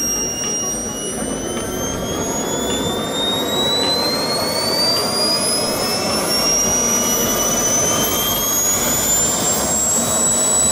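Model jet turbine engine whining as it spools up, its pitch rising slowly and then holding steady near the end.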